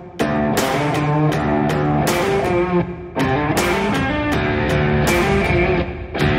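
Background music led by guitar chords over a regular beat, with short breaks about three seconds in and near the end.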